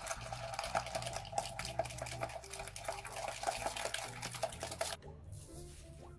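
Egg whites being whipped in a plastic tub with a homemade whisk cut from a plastic water bottle: rapid, continuous splashing and clattering as the bottle is beaten through the liquid, easing off about five seconds in.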